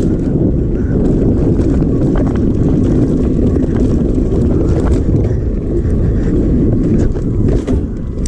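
Wind buffeting a GoPro Hero 5 Black's microphone on a moving mountain bike, a steady low rumble, with tyre noise on the dirt trail and scattered short clicks and rattles from the bike.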